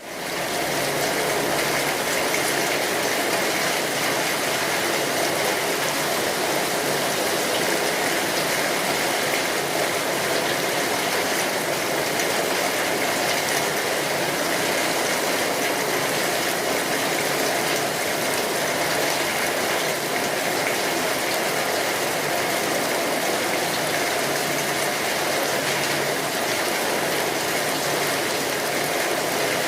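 Steady rain falling, an even hiss with fine patter, fading in quickly at the very start.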